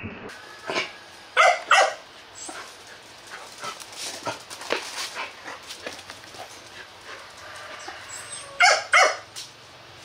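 Mông Cộc bobtail village dog giving two pairs of short, sharp barks, one pair about a second and a half in and another near the end, with fainter scuffing clicks in between.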